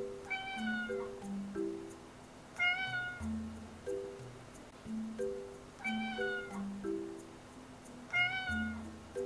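A white short-legged Munchkin cat meowing four times, every two to three seconds. Each meow is short and falls slightly in pitch. Light background music plays underneath.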